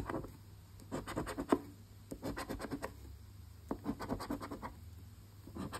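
A coin scratching the scratch-off coating from an instant lottery ticket, in quick short strokes that come in several bursts with brief pauses between.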